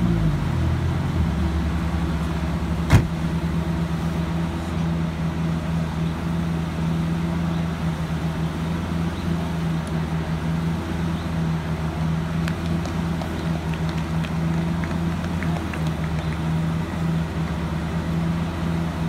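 Lamborghini Gallardo's V10 engine idling steadily, its pitch settling down in the first second. The car's door shuts with a single sharp thud about three seconds in.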